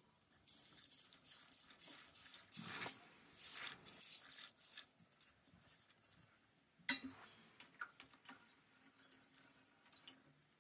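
Dry wheat pasta tipped off a steel plate into a steel pot of hot water: a dense run of rustling and splashing for about four seconds. Then a spoon stirs the pasta, clicking against the side of the pot a few times.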